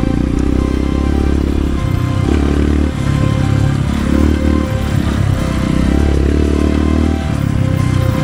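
Honda CRF150L's single-cylinder four-stroke engine running under way, its note rising and falling as the throttle changes.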